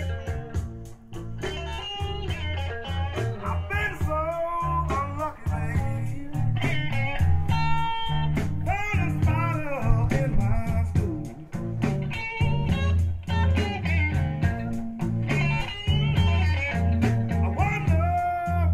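Chicago blues record playing through Design Acoustics PS-8c speakers driven by a Sansui AU-555 amplifier: electric guitar with bending notes over heavy bass and a steady drum beat, heard in the room.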